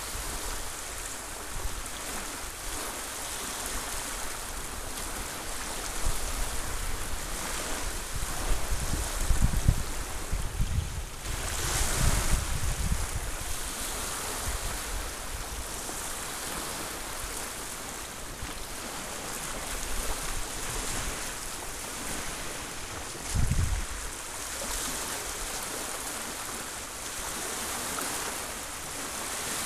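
Small waves lapping and washing onto a sandy shore among rocks in a steady wash. Wind buffets the microphone now and then in low rumbles, most strongly around the middle and briefly again later on.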